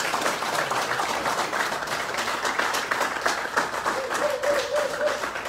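Audience applauding a graduate, many hands clapping and slowly tapering off toward the end.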